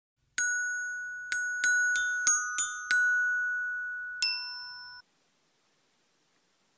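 Short intro jingle of struck, bell-like chiming notes, glockenspiel-like: seven quick strikes, then one last note after a short pause, all left ringing until they stop abruptly about five seconds in. Near silence follows.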